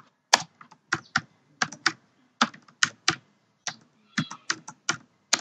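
Typing on a computer keyboard: separate key clicks at an uneven pace, two or three a second.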